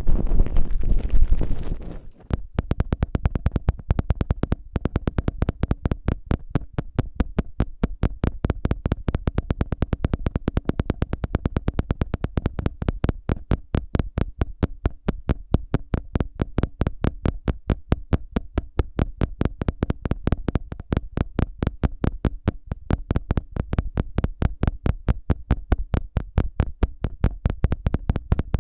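Ear-cleaning ASMR sounds: a low rumbling rub that stops about two seconds in, then fast, even strokes of an ear pick against the microphone, about four to five a second.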